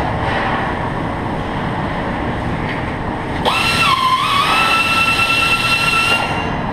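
Robotic MIG welding arc striking about halfway in and burning for about three seconds with a crackling hiss and a steady whine, then cutting off, over steady factory machine noise.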